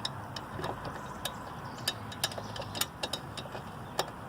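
Irregular small clicks and ticks of screws and a screwdriver being worked into a chainsaw's top cover, the screws only started and not yet tightened, over a steady low hum.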